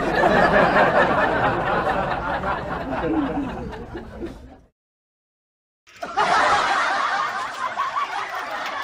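Laughter sound effect laid over the video: a burst of laughing that fades out about four and a half seconds in, a second of dead silence, then laughing starting again about six seconds in.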